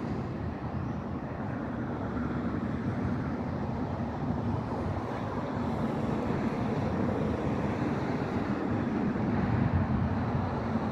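Steady low rumble of a Union Pacific maintenance-of-way train, with wind noise on the microphone.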